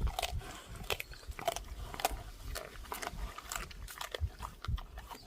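An animal chewing and crunching watermelon: repeated short crunching bites, roughly two a second.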